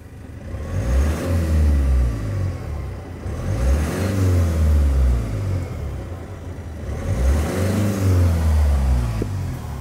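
Globecar camper van's turbodiesel engine revved three times, each rev rising and falling back. It carries a noise that the mechanic puts down to the turbocharger not sounding quite normal, though it still holds boost.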